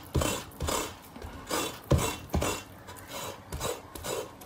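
Chinese cleaver blade scraping excess fat off boiled pig skin on a wooden cutting board, in repeated strokes about two a second, several of them starting with a knock of the blade on the board.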